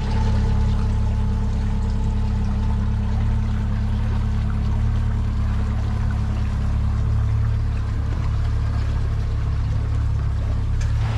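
Outboard motor running steadily, driving a small boat along, with water rushing past the hull.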